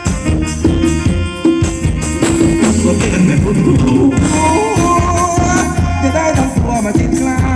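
Live band playing Thai ramwong dance music: a steady drum beat with a tambourine-like jingle, and a wavering melody line that comes in about halfway through.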